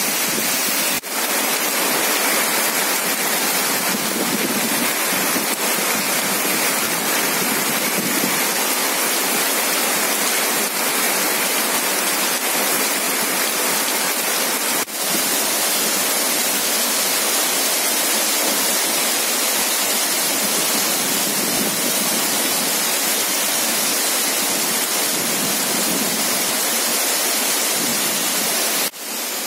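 Heavy rain pouring down in a steady, dense hiss, with three brief dips: about a second in, halfway through, and near the end.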